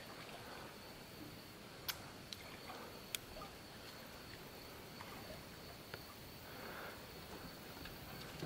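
Quiet outdoor background: a faint steady hiss with a thin high tone, broken by a few isolated sharp clicks, the clearest about two and three seconds in.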